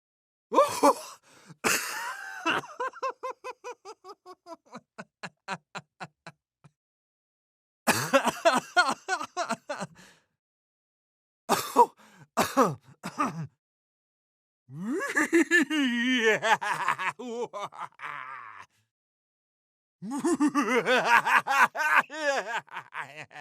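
A run of separate human laughs, about five in all, each a few seconds long with short silences between. The first trails off into a slowing series of fading "ha" pulses; the later ones are denser, wavering cackles.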